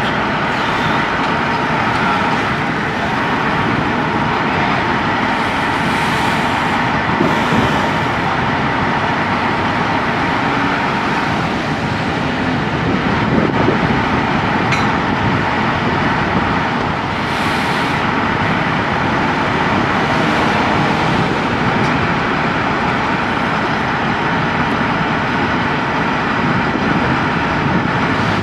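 Steady drone of heavy diesel engines from a mobile crane and trucks, mixed with street traffic; a car passes close by about halfway through.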